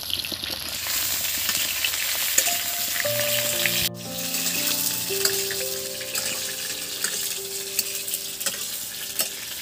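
Pieces of pointed gourd (parwal) sizzling as they fry in hot oil in a pan, with the light scrape and tick of a spatula turning them over.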